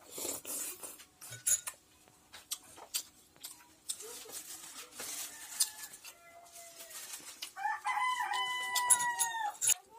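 A rooster crowing once near the end, one long call of about two seconds, the loudest sound here. Before it come close eating sounds: a slurp of dal from a spoon, then scattered clicks and ticks of eating from a steel plate.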